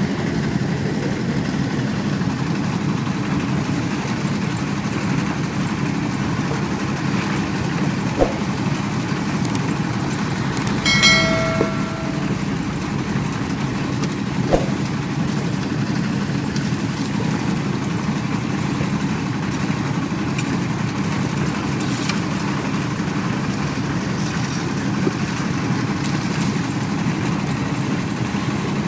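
Old diesel engine on a concrete mixer running steadily. About eleven seconds in there is a brief high tone, and single sharp knocks sound a few seconds before and after it.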